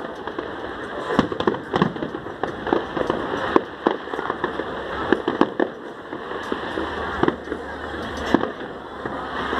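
Aerial fireworks going off: an irregular string of bangs and pops, several a second, over continuous crackling.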